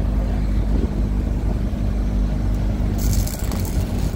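Blackpool boat tram running along its track: a steady low rumble of the motors and wheels on the rails. About three seconds in, a sudden high hiss joins it.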